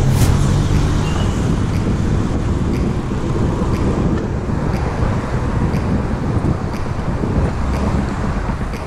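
Wind rushing over the microphone and the rumble of bike tyres on brick paving while cycling, with city traffic noise behind it. A sharp click sounds just after the start, and the last low notes of background music fade out within the first second.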